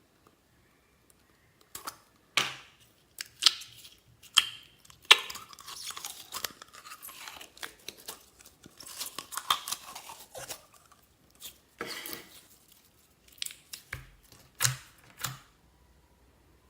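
Slime being squeezed, poked and stretched by hand, making irregular sticky clicks, pops and crackles that stop shortly before the end.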